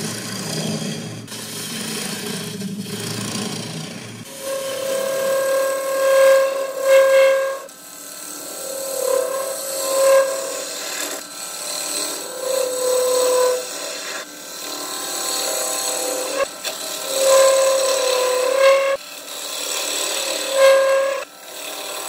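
Lathe gouge cutting into a spinning wooden turning, throwing off shavings, in a series of passes a second or two long. Each pass carries a pitched singing tone with short breaks between them, and a low hum drops out about four seconds in.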